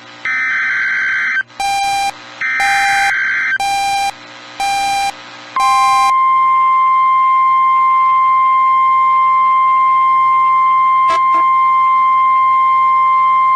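Emergency Alert System SAME header tones: two buzzy digital data bursts, with five short beeps about a second apart laid over them. About six seconds in, the NOAA Weather Radio 1050 Hz warning alarm tone starts and holds steady. Together they announce the next broadcast, a snow squall warning.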